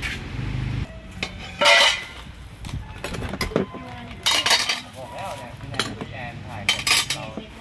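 Spoons clinking and clattering against small bowls of spices on a tray. There are several sharp clinks, the loudest a couple of seconds in, with more midway and near the end.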